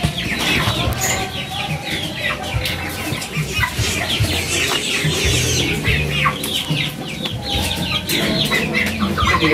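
A group of two-month-old Indio Gigante chicks peeping and clucking, many short falling chirps overlapping one another.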